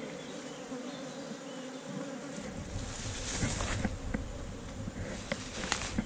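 Wild honeybee colony buzzing inside a hollow tree trunk, a steady even hum. From about halfway, a low rustling noise and a few sharp clicks join in.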